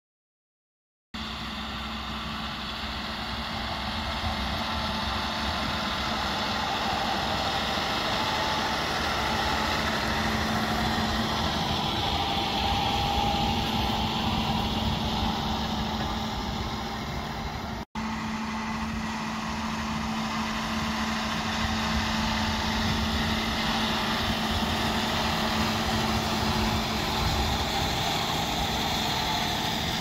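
John Deere six-cylinder diesel tractor running steadily under load while pulling a reversible plough through the soil. The sound starts about a second in and drops out for an instant a little past halfway.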